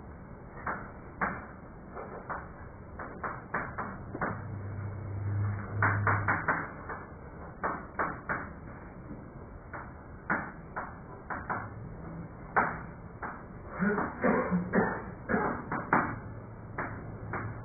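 Chalk tapping and scraping on a blackboard as formulas are written: a run of short, irregular clicks and taps. A low hum comes in briefly around five seconds in.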